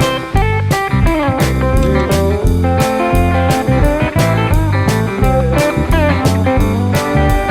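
Background music: a blues-style guitar tune with bending notes over a steady drum beat and bass line.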